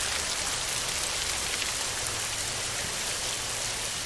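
Heavy rain falling on a metal roof: a steady, dense hiss with scattered sharp ticks of single drops.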